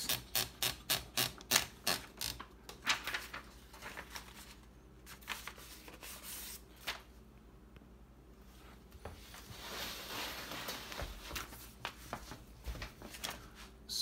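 The platen of a 1955 Groma Kolibri portable typewriter being rolled by its knob to take out a typed sheet: a quick run of ratchet clicks, about four a second, for the first few seconds. This is followed by a soft rustle of the paper sliding free about ten seconds in.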